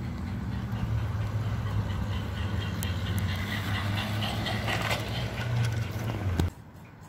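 LGB 0-4-0 Porter G-scale model locomotive running past with its cars: a steady motor and gear hum, with the wheels clicking and rumbling on the track, loudest as it passes close. The sound cuts off suddenly near the end.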